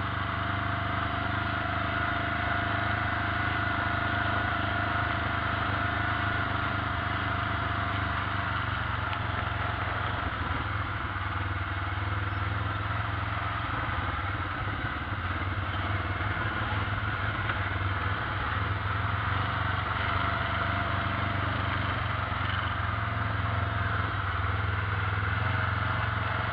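Side-by-side UTV's engine running steadily as it drives along a grassy trail, heard from inside its cab.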